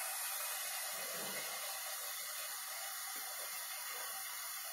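Quiet, steady sizzle of minced-meat filling with tomato and vegetables frying in a pan.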